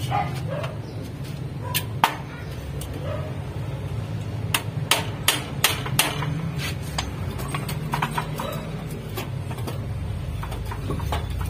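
Claw hammer knocking on a metal rack frame: scattered sharp strikes, with a quick run of about five blows around the middle, over a steady low background hum.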